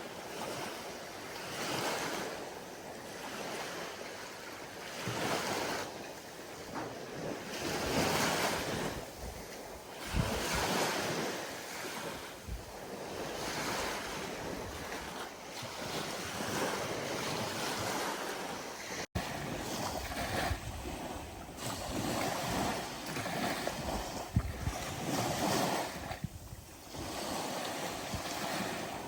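Ocean waves breaking and washing, the surf swelling and ebbing every few seconds, with low wind rumble on the microphone at times. The sound cuts out for an instant about two-thirds of the way through.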